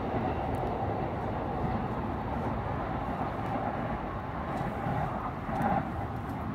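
Electric trains running on an elevated line, a steady rumble of wheels on rail as they approach. A brief, slightly louder tone sounds near the end.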